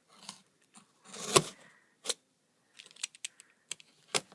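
A cardboard package being worked open by hand: a short scraping rip about a second in, the loudest sound, among scattered sharp clicks and light knocks of handling.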